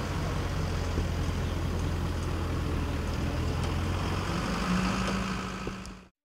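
Hino 4WD truck's diesel engine running steadily at low revs, a steady low drone that cuts off sharply about six seconds in.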